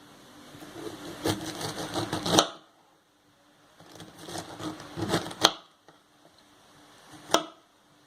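A knife slicing a peeled pineapple into rounds: two stretches of quick sawing strokes through the fruit, each ending in a sharp stroke, then a single sharp knock near the end.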